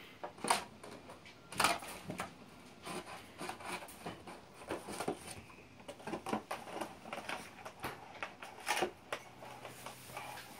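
A milk crate scraping and knocking on the floor as a puppy pushes, drags and mouths it. The rubs and clatters are irregular, with a few louder knocks.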